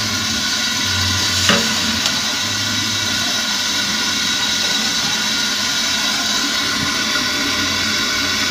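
Steady hiss of a gas stove burner heating a wide aluminium wok of frying oil, while the oil is stirred with a perforated metal skimmer; a brief clink about a second and a half in.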